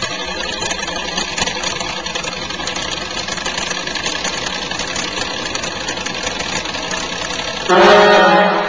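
A steady mechanical running noise, engine-like. Near the end, a fire alarm diaphone horn sounds one loud, low-pitched blast of about a second, part of a coded signal.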